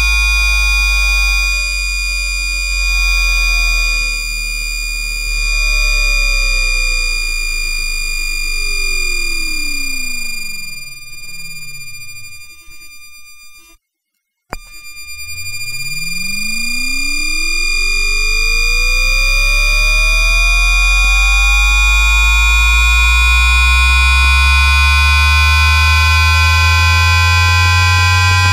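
Siemens two-level IGBT-VVVF traction inverter and AC traction motor of a Houston METRORail H1 light rail car, picked up electromagnetically by an inductor coil on the car floor rather than by a microphone. A steady high whine from the constant 1200 Hz asynchronous switching runs throughout, under tones that fall as the train brakes to a crawl. The sound cuts out briefly just before halfway while the car coasts, then comes back with rising tones as the train re-accelerates.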